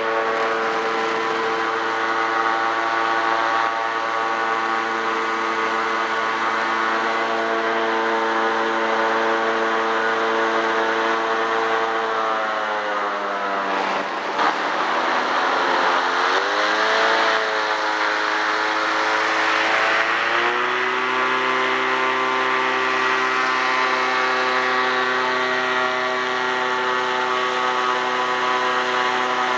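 Airboat engine and propeller running loud and steady. About halfway through, the engine note dips, then climbs back over a rush of noise and holds a little higher.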